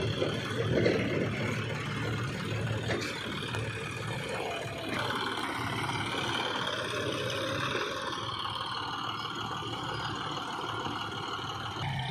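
John Deere tractor's diesel engine running as it pulls a loaded trailer of soil, with the engine note changing about five seconds in.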